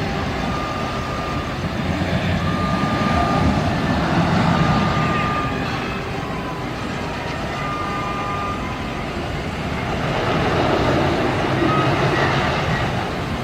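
Reversing alarm on construction machinery beeping in a steady on-off rhythm over the low engine rumble of heavy equipment; the beeps stop for a few seconds in the second half, with one more near the end.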